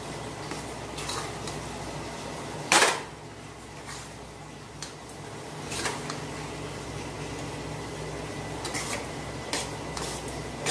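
Steel spatula scraping and clinking against an aluminium kadhai as besan is stirred and roasted in ghee. A few sharp metallic clinks, the loudest about three seconds in, over a steady low hum.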